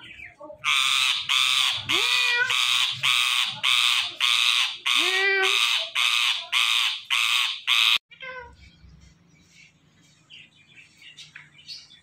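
Indian ringneck parakeet giving a rapid series of harsh, loud squawks, about two a second, with a couple of gliding notes mixed in. The calls stop abruptly about eight seconds in, leaving only faint chirps and ticks.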